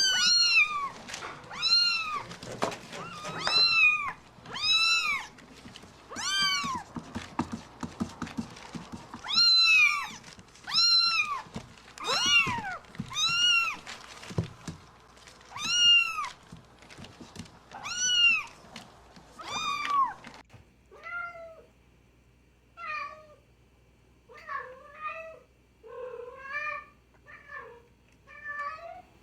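Kitten meowing loudly and over and over, about one high, arched meow a second. About twenty seconds in, this gives way to quieter, shorter, wavering meows in a lower voice.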